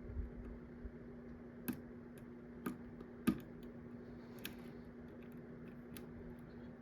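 Small, irregular metallic clicks of a lock pick working the pin tumblers of a pin-tumbler mortise cylinder under light tension, about half a dozen over several seconds. A steady low hum runs underneath.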